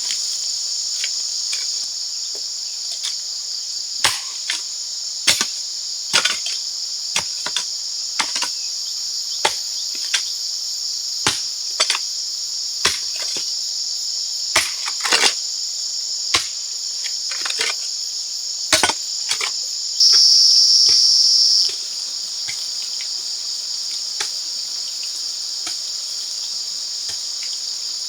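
Steady high-pitched insect chorus in rainforest, with irregular sharp knocks or taps, about one a second, through most of the first two-thirds. About twenty seconds in the insect drone briefly swells louder for a second or two.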